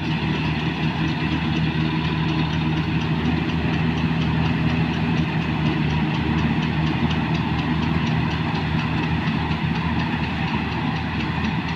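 Combine harvester's diesel engine and threshing machinery running steadily while cutting paddy: a constant drone with faint regular ticking.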